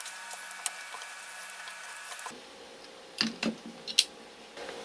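Faint ticks and scrapes of steel piano wire being wound onto a screwdriver shank, then a handful of sharp clicks and knocks as hand tools, locking pliers and the screwdriver, are handled on the workbench. The loudest knock comes about four seconds in.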